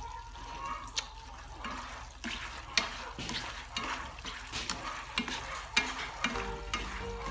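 Sugar syrup bubbling and sizzling around banana slices in a frying pan as they are candied, with wooden chopsticks clicking now and then against the pan as the slices are stirred.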